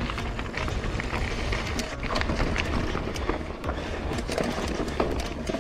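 Lapierre Zesty AM mountain bike descending a rocky dirt trail: tyres crunching and rolling over stones, with frequent short knocks and rattles from the bike as it hits rocks. Wind rumbles on the helmet-mounted camera's microphone.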